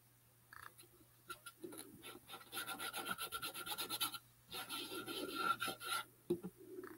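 Small paintbrush scrubbed rapidly back and forth over a painted cardboard box, a dry scratchy rubbing. The strokes come in two quick spells with a short pause about four seconds in.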